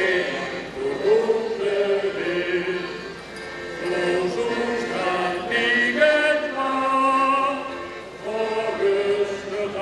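A group of voices singing a song together in long held notes.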